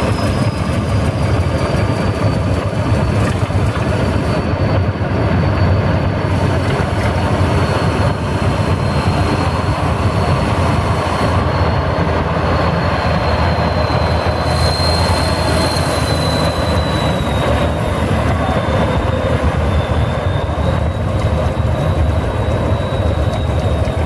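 Kirovets K-700A tractor's diesel engine running steadily as the tractor drives slowly across the ground, a deep rumble with a thin high whine that drifts slowly lower in pitch.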